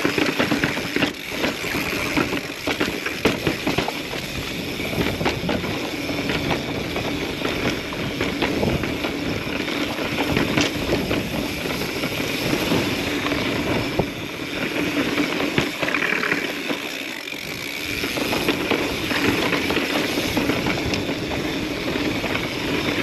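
Mountain bike riding over sandstone slickrock: tyres rolling and scrubbing on rock, with many quick rattles and knocks from the bike.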